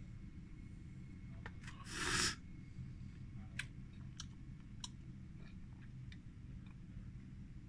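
Faint steady low hum with a short hissing rush about two seconds in and a scattered handful of light clicks.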